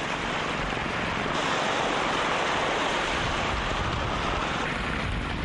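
Sea surf washing onto a sandy beach: a steady rushing noise.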